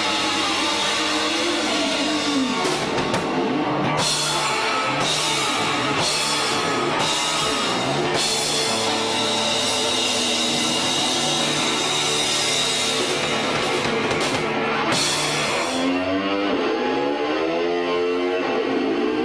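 Hard rock band playing on electric guitar and drum kit. Cymbal crashes come about once a second in the middle, and near the end the guitar plays sliding, bending notes.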